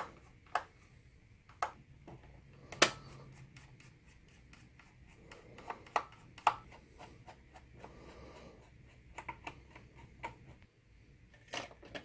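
Screwdriver and small screws clicking and tapping against the projector's sheet-metal shield as it is unscrewed and handled, in about a dozen separate sharp clicks with the loudest clink about three seconds in, over a faint low hum.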